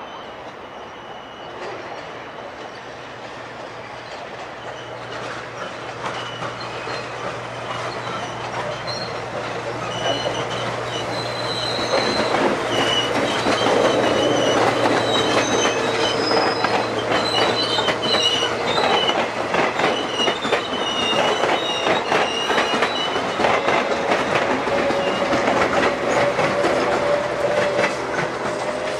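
Electric multiple-unit suburban train passing close by, wheels clicking over rail joints with high, shifting squeals from the wheels. It grows steadily louder over the first dozen seconds and then stays loud as the coaches roll past.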